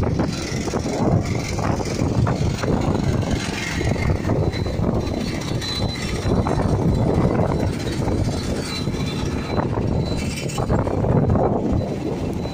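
Strong dust-storm wind buffeting the microphone, mixed with the noise of the vehicle it is recorded from, a dense, steady rumble with rapid flutter.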